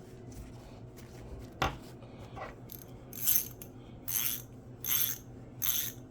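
Freshly oiled and cleaned hand socket ratchet being worked: a single sharp click, then short bursts of rapid pawl clicking about once a second as the handle swings back and forth. The ratchet mechanism that had locked up now turns freely.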